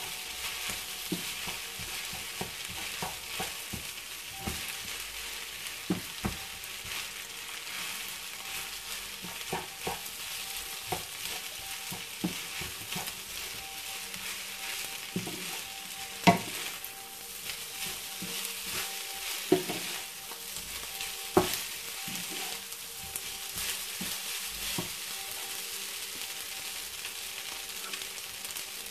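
Fried rice sizzling in a nonstick frying pan as it is stirred and turned with a wooden spatula, with scattered knocks of the spatula against the pan, the loudest about 16 seconds in.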